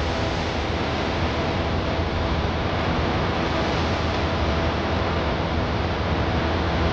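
A steady, even rushing noise, like wind or surf, with faint held tones beneath it.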